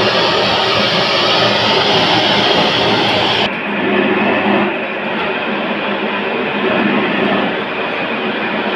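Gas blowtorch roaring steadily as it singes a whole chicken, then after an abrupt cut about three and a half seconds in, a steady mechanical running noise from a stainless-steel chicken cutting machine as chicken is cut at it.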